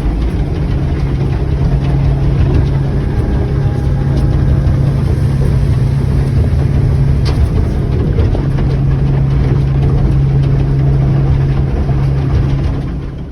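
Boat engine running steadily under way, a loud low drone with a rushing noise over it; it cuts off suddenly at the end.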